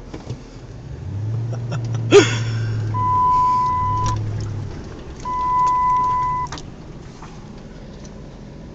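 Truck engine pulling away and driving forward over rough ground, with a short sharp squeal about two seconds in. Then two long steady electronic beeps, each about a second, typical of a vehicle warning chime.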